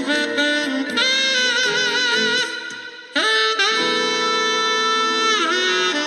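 Background music led by a saxophone playing a slow melody with vibrato. A long held note in the second half dips in pitch near the end.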